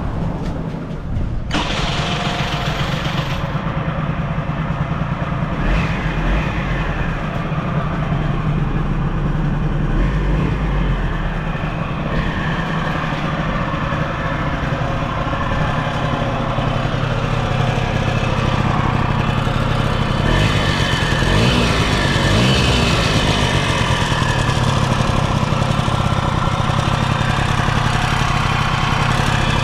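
Honda Cabina 90 scooter engine starting and running at idle, with an abnormal noise that the seller attributes to a worn crankshaft bearing. The engine is revved up and back down briefly about twenty seconds in.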